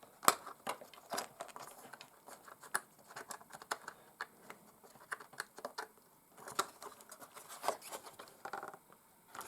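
Irregular small clicks, taps and rattles of hands working a small RC crawler's hard plastic body and its clips loose to lift it off the chassis.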